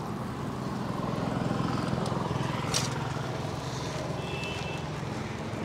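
Road traffic: a motor vehicle's engine runs close by, swelling over the first two seconds and then easing. There is a sharp short hiss nearly three seconds in and a brief high beep a little after four seconds.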